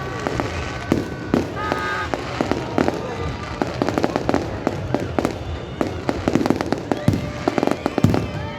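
Aerial fireworks going off in rapid succession: a dense run of sharp bangs and crackling, with some high whistle-like glides near the end.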